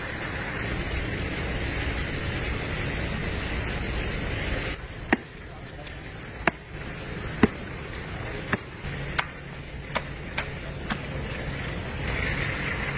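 Water from a hose running steadily over the carcass, which cuts off about five seconds in. Then a long-handled chopper strikes into the meat, about eight sharp blows roughly a second apart. The water noise comes back near the end.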